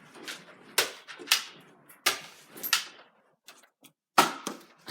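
About five sharp plastic clacks and knocks from Nerf blasters being fired and handled, spaced irregularly with short quiet gaps.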